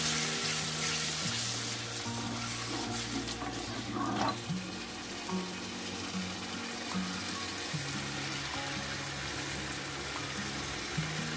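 Biryani masala of tomato, spices and yogurt sizzling in a large pot as it is stirred with a wooden spatula, with background music of held low notes.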